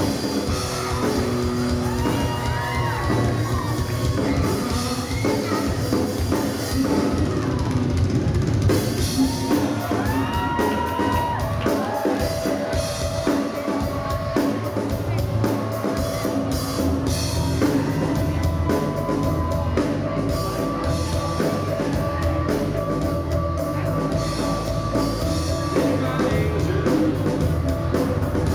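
Live rock band playing a song, with a drum kit keeping a steady beat and a sung vocal line over it.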